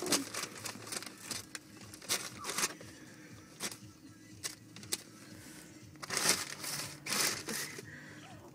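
Paper fast-food bag rustling and crinkling in short, irregular bursts as a hen pheasant pokes its head into it and pecks inside. The rustling is busier about six seconds in.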